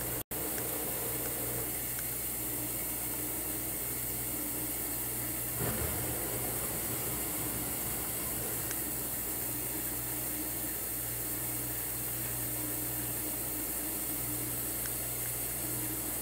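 A steady low motor hum with an even hiss over it, unchanging throughout, with a brief break about a quarter second in.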